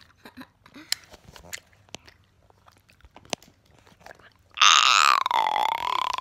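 Hard candy being crunched and chewed close to the microphone, small scattered clicks and crunches. About four and a half seconds in, a child lets out a long, loud, high-pitched cry that holds its pitch.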